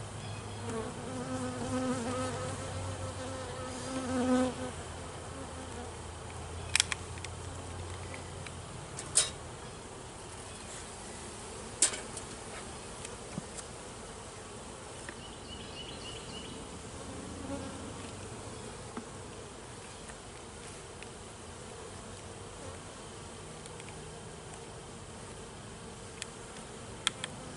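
Honeybees buzzing around an open hive; one flies close for the first few seconds, its buzz swelling about four seconds in. A few sharp clicks stand out above the buzzing.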